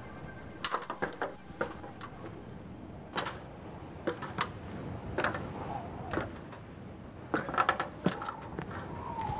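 Irregular knocks and clicks of a person climbing down a ladder, in small clusters over a low steady hiss, with a wavering creak beginning near the end.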